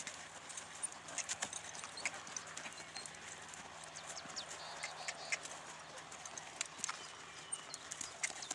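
Hoofbeats of a horse walking on a sand arena, heard as scattered, irregular light clicks over a faint background haze.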